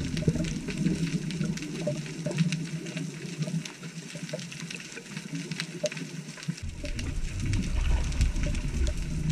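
Underwater ambience heard through a GoPro's waterproof housing: muffled rushing water noise with scattered faint clicks. The low rumble fades out about a second in and comes back strongly at around six and a half seconds.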